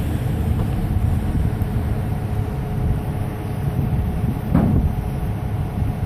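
Concrete mixer truck's diesel engine running steadily at idle, a low rumble, with one short louder swell about four and a half seconds in.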